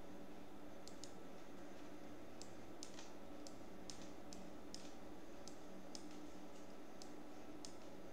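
Faint, uneven clicks, about two a second, from a computer being worked as a document is scrolled, over a steady low hum.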